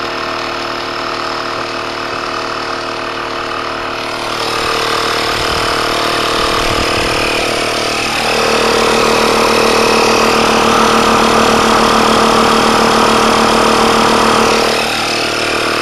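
Electric inflator compressor of a tire-sealant kit running steadily, pumping foam sealant into a flat riding-mower tire. Its hum gets louder about four seconds in and again at about eight seconds, with a brief shift in pitch.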